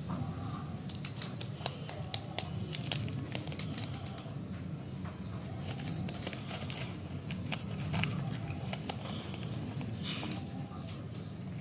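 A stick lollipop's candy wrapper being peeled open by hand: crinkling and tearing with many sharp crackles. A steady low hum runs underneath.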